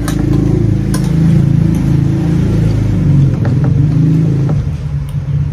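A motor engine running nearby, a steady low hum whose pitch wavers slightly, easing off a little about four and a half seconds in.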